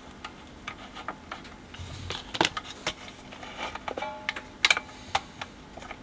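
Scattered light clicks and metallic taps from a BSR UA15SS record changer's idler wheel, bracket and linkage being handled and adjusted by hand, with a short metallic ring about four seconds in.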